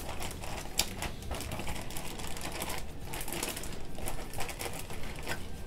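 Sealed plastic zip-top bag of steak and liquid marinade being squeezed and kneaded by hand: irregular crinkling and crackling of the plastic.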